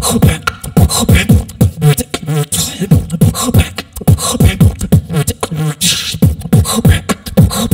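A beatboxer's solo routine through a microphone and PA: deep bass kicks that drop in pitch, several a second, with snare and hi-hat hits over them in a fast, steady groove.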